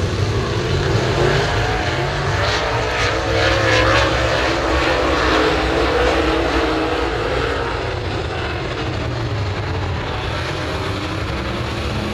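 A field of super late model dirt-track race cars with V8 engines racing around the oval, the engine pitch rising and falling as they pass.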